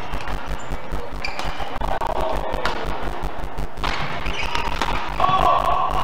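Badminton doubles rally: rackets striking the shuttlecock, with short sharp hits, and brief squeaks that fit shoes on the court mat, over background music with a fast low beat.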